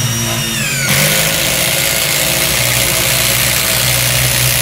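Aimsak 22V cordless impact driver driving a 200 mm self-drilling screw under load. The motor's high whine drops in pitch over the first second as the load builds, then the hammering runs on steadily.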